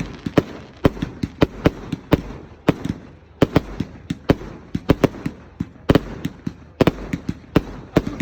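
Fireworks display: a rapid, irregular string of sharp bangs and crackles, several a second, over a low rumble of launches and bursts.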